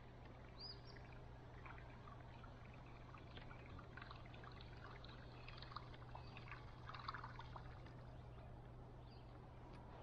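Faint water trickling and dripping against a canoe hull as it moves over calm water, over a low steady hum.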